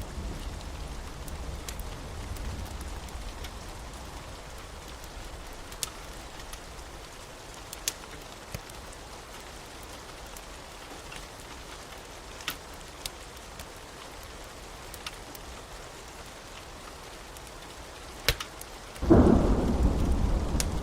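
Steady rain on a surface with a few sharp ticks scattered through it. About nineteen seconds in, a loud clap of thunder breaks and rumbles on.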